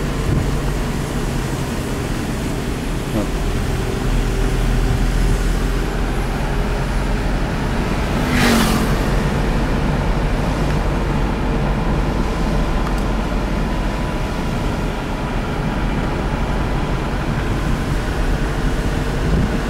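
A car's engine and tyre noise heard from inside the cabin while it drives: a steady low rumble. About eight and a half seconds in there is a short louder noise.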